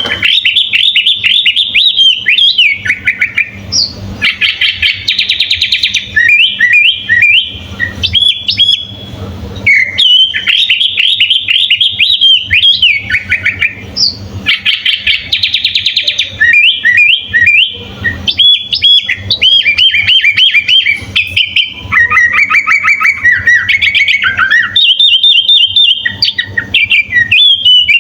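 Sooty-headed bulbul (kutilang) singing loudly in long runs of rapid, varied chirps and trills, broken by a couple of brief pauses.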